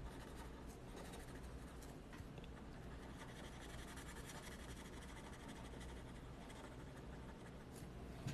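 Faint, continuous scratching of a fine-tip archival ink pen on paper as it fills in a black area.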